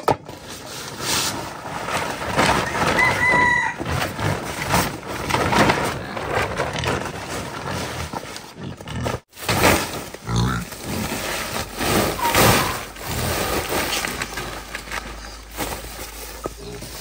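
Chickens clucking and crowing, with a short break in the sound about nine seconds in.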